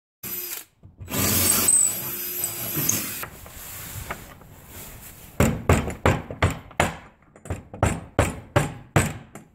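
A couple of seconds of loud scraping noise, then a hammer striking a metal cable fitting into the wooden plow board: about a dozen sharp blows, two to three a second, through the second half.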